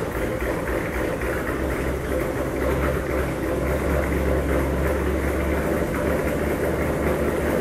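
Shelby GT500's rebuilt V8 idling steadily, a low, even hum with no revving.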